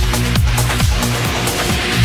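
Electronic dance music with a heavy kick drum and bass beat; a hissing swell rises toward the end.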